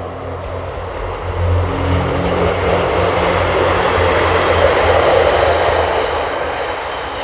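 A passenger train passing by: its rumble swells to a peak about four to five seconds in, then fades.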